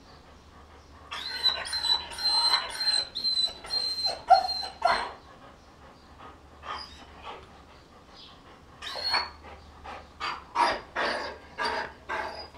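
Heavily pregnant Dobermann bitch in labour whining and whimpering in repeated short, high-pitched bursts: one cluster from about a second in to five seconds, a quieter gap, then another from about nine seconds.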